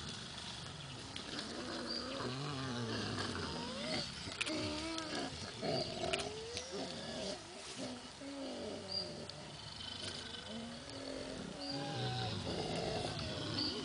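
Mountain gorillas vocalizing: a run of wavering calls that slide up and down in pitch, some deep and some higher, overlapping one another.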